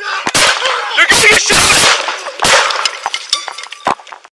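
A quick series of gunshots, the densest cluster about a second in, mixed with shouting and an officer radioing "shots fired".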